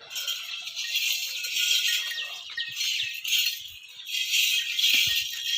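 Many small bells jingling and rattling continuously, in shaken waves that swell and ease every second or so.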